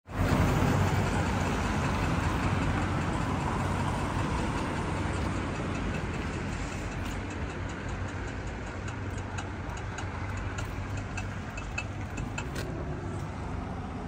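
Street traffic: a motor vehicle's engine running close by with a low hum, loudest at first and slowly fading. From about halfway, a run of light, sharp ticks.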